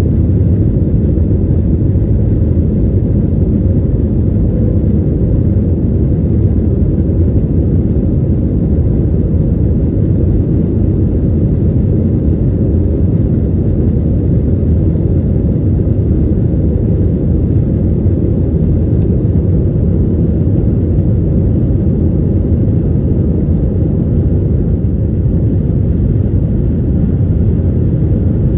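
Jet airliner cabin noise during the climb just after takeoff: a steady, loud, low rumble of engines and airflow heard through the fuselage.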